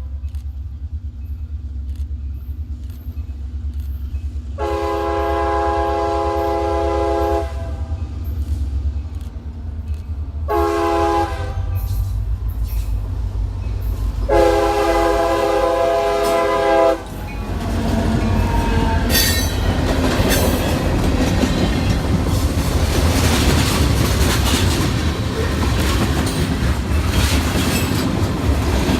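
Train approaching while its locomotive horn sounds a chord in a long–long–short–long pattern, the standard grade-crossing signal, over a deep engine rumble. The train then passes close by in a loud, steady rush and rattle of wheels and cars on the rails.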